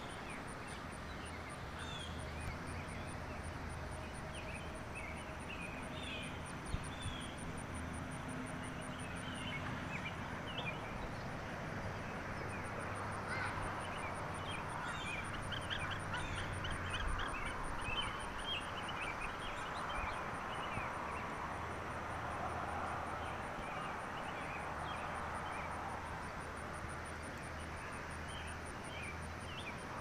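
Outdoor ambience of many birds chirping in short calls, busiest in the middle, over a steady high, pulsing insect drone and a low rumble.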